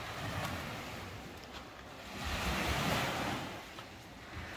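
Small sea waves washing up on a sandy beach, a hiss that swells and fades, with one surge about halfway through and another building near the end.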